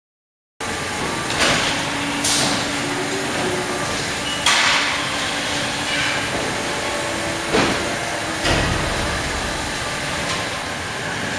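Conveyor and processing machinery running with a steady mechanical noise, starting about half a second in, broken by several sharp knocks and clatters every one to three seconds.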